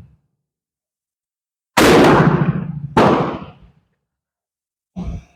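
Rifle shots: a loud report with a long decaying tail about two seconds in, another about a second later, then two fainter, shorter pops near the end.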